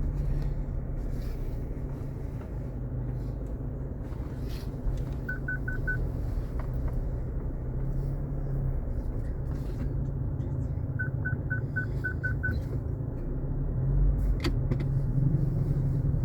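A vehicle's engine running with a steady low rumble. Two runs of quick, short electronic beeps at one pitch sound over it: four beeps about five seconds in and eight beeps about eleven seconds in.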